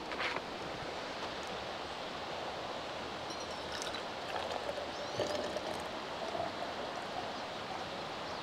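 Steady rushing of the Similkameen River flowing past the campsite, with a few faint clinks and knocks over it.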